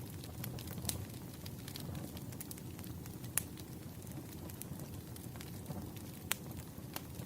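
Wood fire crackling: a steady low rumble of burning logs with scattered sharp pops, a few of them louder.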